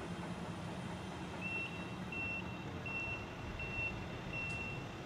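A vehicle's reversing alarm beeping, a single high tone repeating about three times every two seconds, starting about a second and a half in. Under it runs a steady low engine rumble.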